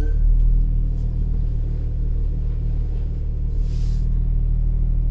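2018 Ram ProMaster van's engine running with a steady low drone, with a short hiss about three and a half seconds in.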